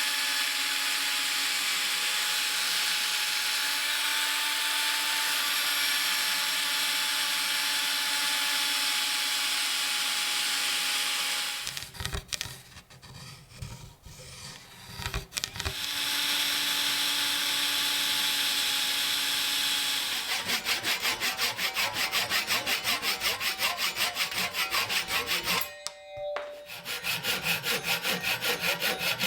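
A small power tool runs steadily on the work for about twelve seconds, then again briefly after a short pause. From about twenty seconds in come quick, even back-and-forth strokes of a hand tool on the work, about three a second.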